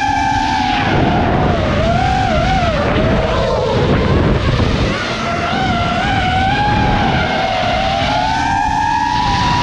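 FPV quadcopter's electric motors whining, the pitch rising and falling with the throttle, with heavy wind rush on the microphone from about a second in until near the end.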